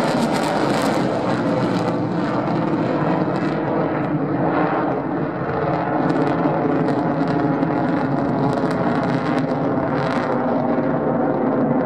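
Jet engine noise from a formation of F-16 Fighting Falcon fighter jets flying overhead, loud and steady, easing slightly about five seconds in.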